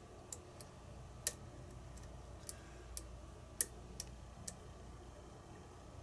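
Faint, irregular metallic clicks of a steel hook pick working the pin stack inside a brass pin-tumbler lock cylinder, about eight ticks in all, with the louder ones about a second in and midway. The lock has security pins and is sitting in a false set.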